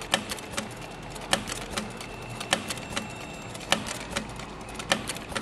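Industrial heavy-duty sewing machine stitching slowly through fabric: a steady run of sharp needle clicks, about two to three a second, with a louder click roughly every second.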